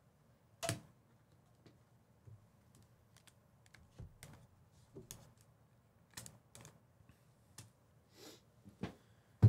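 Scattered light clicks and taps at an uneven pace, with a sharper click about a second in and another at the end.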